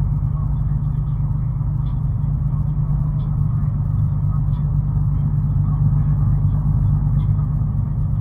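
Steady low rumble of engine and road noise inside a vehicle's cab at highway speed.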